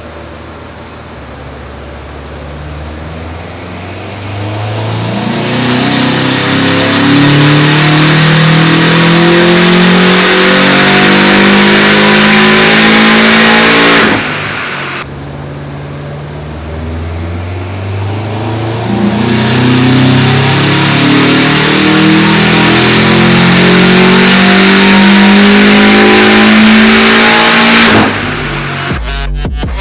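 Subaru WRX STI's turbocharged flat-four engine at full throttle, pulling steadily up through the revs for about ten seconds, then the throttle closes suddenly; a second identical pull follows.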